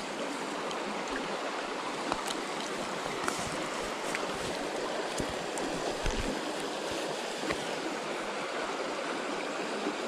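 Shallow river running over a riffle: a steady rush of flowing water, with a few faint clicks scattered through it.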